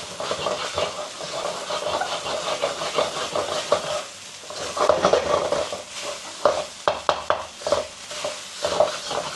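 Rice and carrot being stir-fried in butter in a wok: a spatula scraping and knocking against the pan over steady sizzling, with a quick run of sharp clacks about six and a half to seven and a half seconds in.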